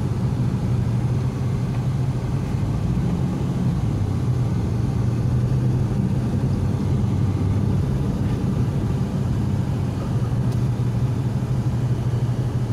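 Car engine and road noise heard from inside the cabin: a steady low drone while driving slowly in traffic.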